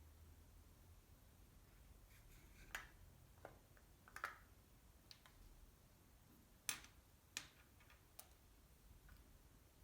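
Near silence broken by about six faint, sharp clicks and taps spread over a few seconds, the loudest a little past the middle, as of small hard objects being handled.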